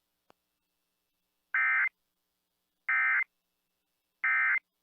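Three short, identical buzzing data bursts about a second and a half apart: the Emergency Alert System end-of-message code from NOAA Weather Radio, signalling that the alert broadcast is over.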